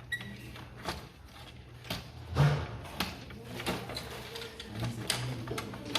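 Scattered light clicks and knocks of a CPU heatsink being handled and seated onto the processor on a desktop motherboard, with a louder knock about two and a half seconds in.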